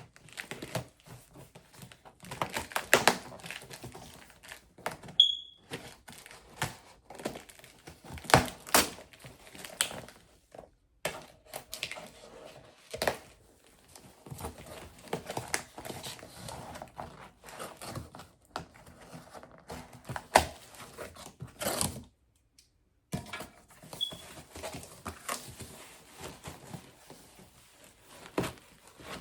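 Plastic packaging being handled and torn open by hand: irregular crinkling and rustling with sharp tearing sounds and occasional knocks, stopping briefly a little past the middle.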